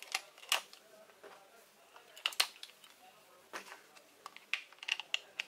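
AA batteries being pressed into a plastic toy's battery compartment, then the plastic cover fitted back on: a series of sharp plastic clicks and knocks. The loudest come about half a second in and as a pair just after two seconds, with a quicker run of clicks near the end.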